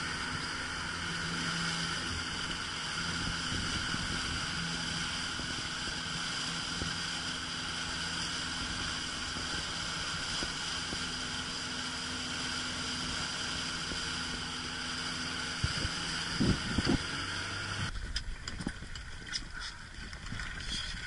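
Boat motor running at a steady speed under wind and rushing water, with a few low thumps shortly before the end. About 18 seconds in it gives way to scattered clicks and clatter as a wire crab pot full of crabs is handled at the rail.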